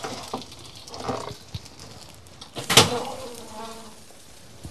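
Metal roasting tray and oven clanking as the tray goes into the oven. There is a lighter knock about a second in, then one loud metallic clank near three seconds that rings briefly, followed by a faint squeak.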